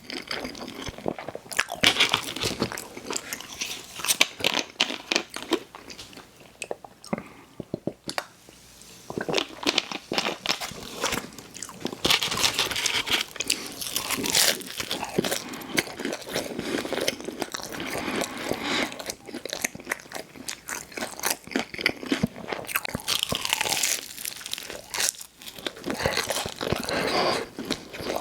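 Close-up sound of a person biting and chewing food with loud, crunchy, crackling bites, easing off for a few seconds about a quarter of the way in.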